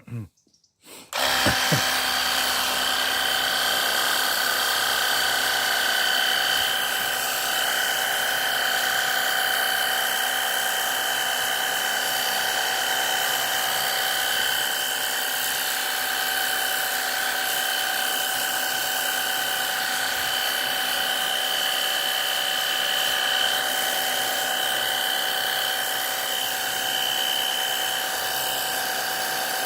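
A 21-volt cordless battery jet washer (pressure washer) running steadily: its motor and pump give a steady whine over a constant hiss. It starts up about a second in.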